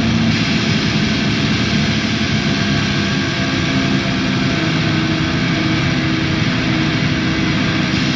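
Drone/noise music: a steady, dense wall of noise with sustained low droning tones underneath, much like an engine rumble. Just after the start the highest tones brighten and a low held note drops away.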